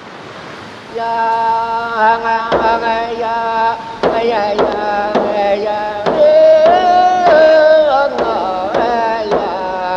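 Music beginning about a second in: a frame drum struck at uneven intervals under a sustained, wavering melody.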